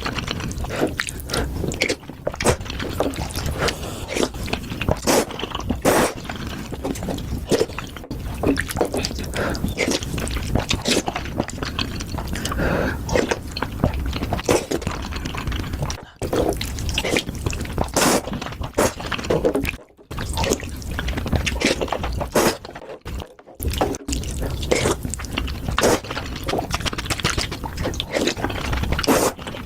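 Close-miked eating sounds of Indomie instant noodles with cheese and bread: a dense, irregular run of chewing, mouth clicks and smacks, with a few short pauses.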